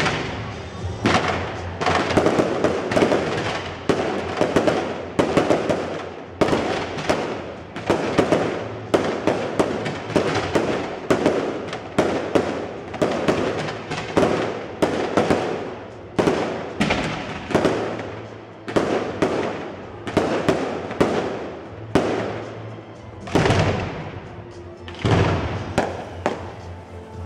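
Fireworks display: a rapid run of rocket launches and bursts, more than one bang a second, with crackling from sparkling rocket tails in between.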